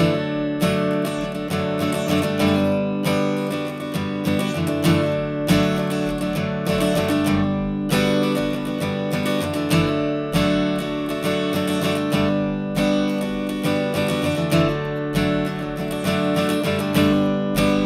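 Background music: a strummed acoustic guitar playing a steady rhythm.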